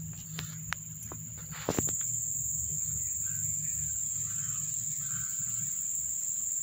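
Insects, crickets, trilling as one steady high-pitched tone that grows louder a little under two seconds in. A few light clicks come in the first two seconds, over a low hum.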